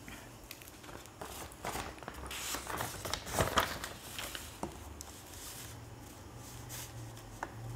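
Paper sheets on a clipboard being flipped over and handled: a run of soft rustles and crinkles, loudest about halfway through, settling to a faint steady hum near the end.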